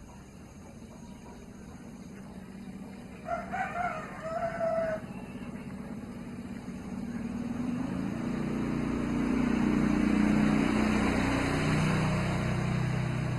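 A village rooster crows once, about three seconds in, in a broken call of several parts. After that a motor vehicle's engine grows steadily louder, peaking about ten seconds in and becoming the loudest sound.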